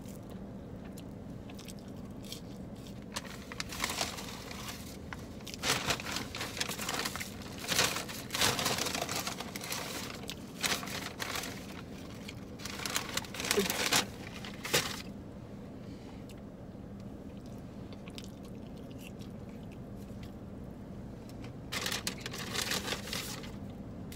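Paper fast-food bag and burger wrapper crinkling and rustling in irregular bursts as hands dig through them. It is busiest from about four to fifteen seconds in and comes again briefly near the end, over a steady low hum.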